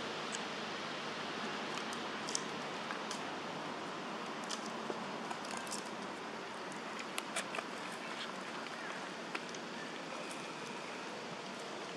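Steady outdoor background hiss with scattered short, high clicks and chirps, several in a cluster about seven seconds in.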